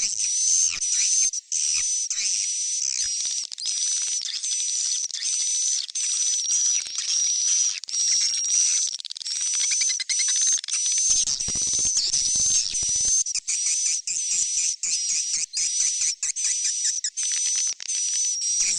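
Swiftlet chick calls, a lure sound for swiftlet nest houses: dense, continuous high twittering chirps repeating about twice a second.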